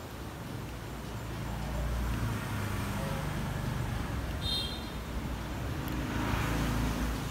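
Low rumble of road traffic, swelling as a vehicle passes near the end, with a brief high-pitched beep about halfway through.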